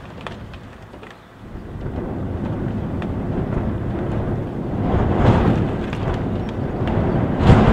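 Gusting wind and heavy rain heard from inside a house. The wind drops briefly, then builds from about a second and a half in, surging around five seconds and again near the end, with scattered taps of raindrops.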